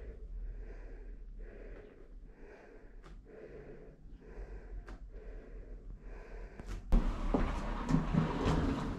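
Heavy, rhythmic breathing from someone doing strenuous work, about one breath every three-quarters of a second. About seven seconds in, a louder, rough rustling noise sets in.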